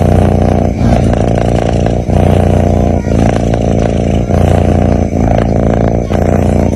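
Sleeping kitten snoring close to the microphone: a steady low rumble broken by brief dips about once a second, with each breath.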